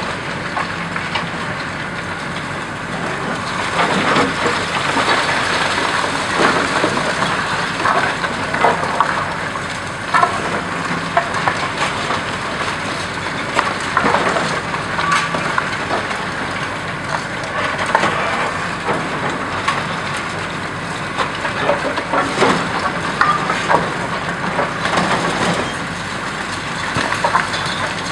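Hydraulic crusher jaws on a high-reach demolition excavator crunching through reinforced concrete, with irregular sharp cracks and snaps as slabs break and rubble falls. The machine runs steadily underneath.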